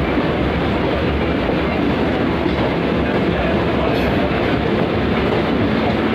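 Running noise of moving trains: a steady rumble and rattle of wheels on rails, heard from the open doorway of a moving local train as an express runs on the adjacent track.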